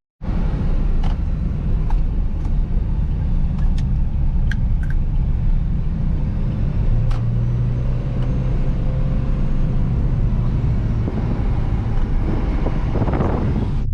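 A car being driven, its engine and tyres making a steady low rumble, with a hum that steadies in the middle and a few light clicks.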